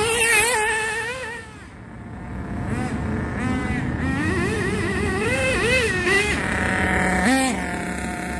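Thunder Tiger EB4 S3 nitro buggy's .28 Pro engine revving up and down as the car drives, its pitch rising and falling. It fades about a second and a half in as the car moves away and then comes back. It settles to a steady note, with a sharp throttle blip near the end.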